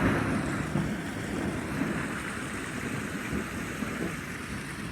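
Heavy thunderstorm rain pouring steadily, with a rumble of thunder dying away in the first second or two.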